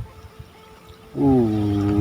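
A man's voice holding one long, drawn-out vocal sound without words, starting about a second in and sagging slightly in pitch.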